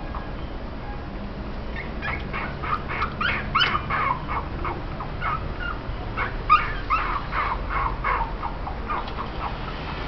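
Japanese Spitz puppies about two weeks old whimpering and yelping: a quick run of short, high squeaks beginning about two seconds in, with the loudest cries around four and six and a half seconds.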